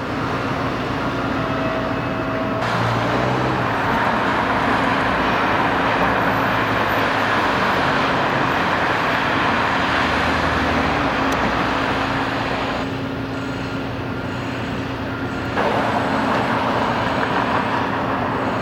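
Road vehicle noise: a steady mix of tyre and engine sound with a constant low hum, easing a little for a few seconds about two-thirds of the way through.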